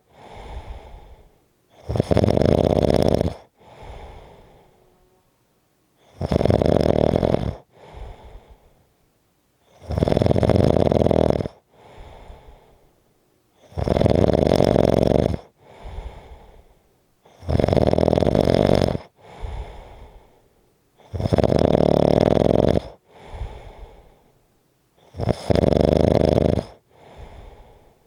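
Snoring in a steady rhythm: a loud snore about every four seconds, seven in all, each followed by a shorter, softer breath sound.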